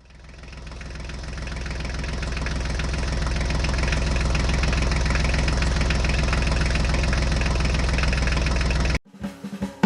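Tractor engine idling with a steady low rumble, fading in over the first few seconds and cutting off abruptly near the end.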